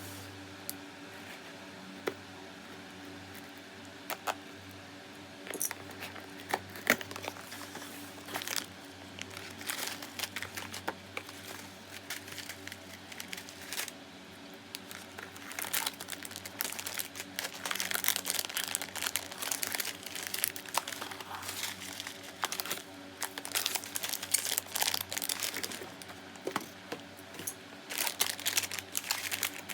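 Plastic packaging crinkling and rustling as a box of treats is unpacked by hand, with scattered sharp crackles. These are sparse at first and grow busier and more continuous about halfway through.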